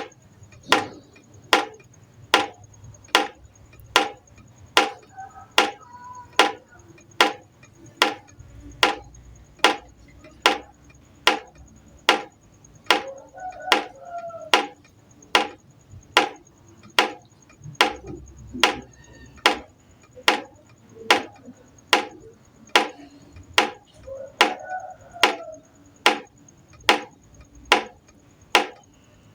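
Water drops falling one by one into a pot, each landing as a sharp plink in a steady rhythm of a little under two drops a second, with a faint ringing after some of them.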